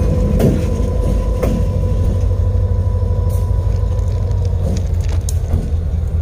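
Diesel locomotive engine running close by: a steady, heavy low rumble with a fast throb, a faint whine that fades out about halfway through, and a few light knocks.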